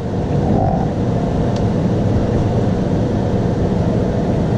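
Steady low mechanical rumble of running machinery, even throughout, with no single knocks or strokes standing out.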